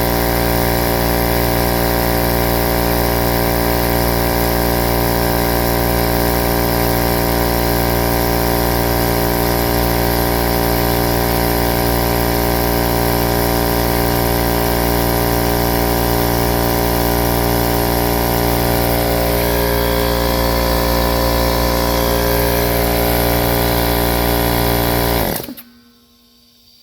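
Husky 33-gallon 1.7 hp air compressor running steadily, then stopping abruptly near the end as its motor cuts out at a little above 40 psi, well short of full pressure. The owner believes a faulty thermal or amperage overload switch in the motor is tripping, just under 12 amps.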